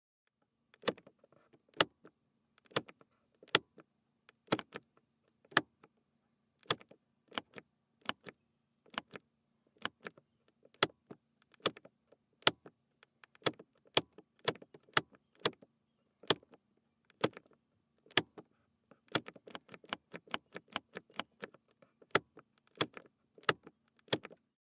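Plastic switch flipped on and off repeatedly, giving sharp single clicks about once a second that come quicker and more irregularly near the end.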